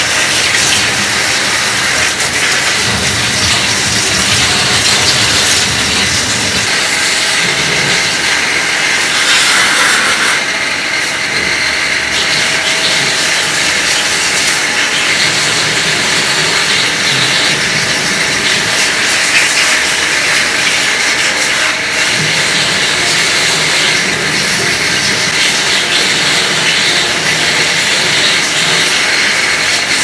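Steady hissing jet of water from a hose nozzle spraying the removed stainless-steel drum of a top-loading washing machine, with water splashing off the drum and tiled wall.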